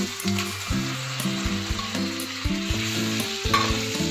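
Masala paste sizzling in oil in a nonstick pan as pressure-cooked chicken pieces and their stock are added and stirred in with a spatula, with a few soft knocks of the spatula. Soft background music plays under it.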